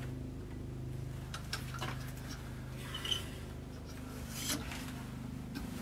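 Steady low hum under a few faint clicks and rubs of metal tooling being handled while a bowl gouge is set in a grinder sharpening jig.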